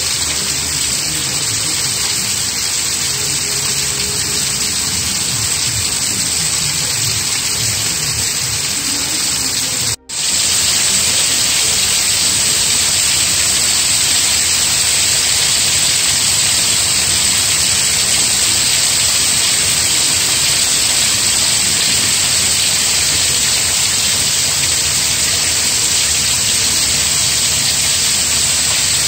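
Steady rain falling, a dense even hiss. The sound cuts out for an instant about ten seconds in, then comes back a little louder.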